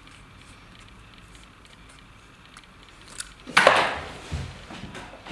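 Small objects handled on a fly-tying desk: quiet for a few seconds, then one brief loud scrape-like handling noise about three and a half seconds in, followed by a few softer knocks.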